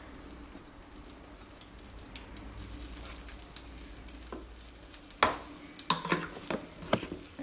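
Cooked biryani rice being turned over with a metal ladle in an aluminium pressure cooker: soft scraping and rustling of the rice, then from about five seconds in several sharp clicks of the ladle knocking against the pot.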